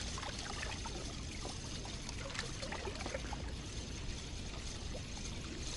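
Water trickling and lapping, with a steady low wind rumble on the microphone and a few faint clicks.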